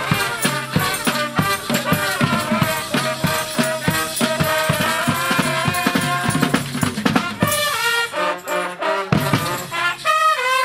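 Brass band of trombones, trumpets and a sousaphone playing an upbeat tune over a steady drum beat.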